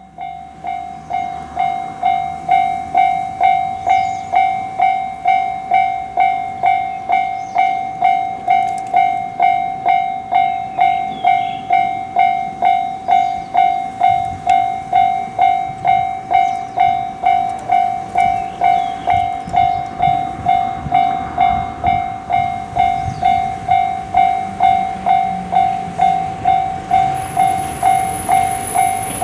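Japanese level-crossing warning alarm, the electronic "kan-kan" bell, starting up and then ringing steadily at a little under two strikes a second. In the second half the rumble of a train grows beneath it, and a thin high tone sounds briefly near the end.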